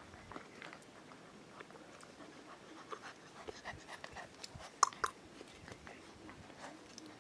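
Bernese mountain dog puppies eating from a steel bowl and padding about on paving: scattered light clicks and taps, with two sharper, louder sounds close together about five seconds in.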